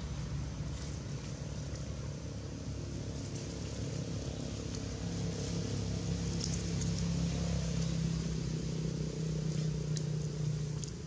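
Low, steady drone of an engine running, a vehicle idling or passing, with a few faint short crackles.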